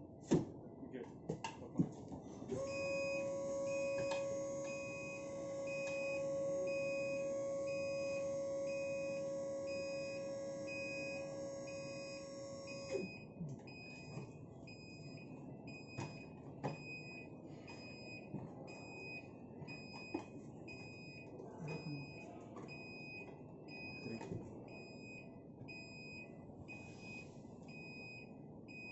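Elektra SL650 step-model wheelchair lift in operation: a few clicks from its mechanism, then its motor runs with a steady hum for about ten seconds while a warning beeper sounds a regular repeated beep. The hum stops abruptly and the beeping goes on, with scattered clicks and knocks from the platform.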